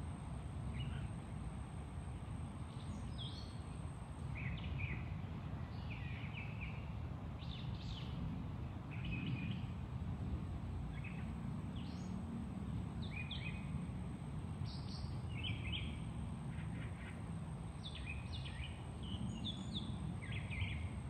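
Small birds chirping and singing, short calls and brief trills repeating every second or two throughout, over a steady low rumble of background noise.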